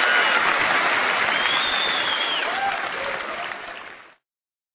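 A large audience applauding, dying away and then cutting off abruptly about four seconds in.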